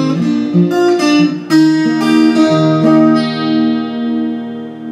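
Steel-string acoustic guitar playing the close of a song: a few picked notes and strums, the last about three seconds in, then that final chord rings on and fades away.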